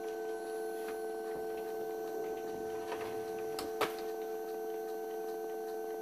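A steady hum made of several fixed tones, with a few faint clicks and one sharper click a little before four seconds in.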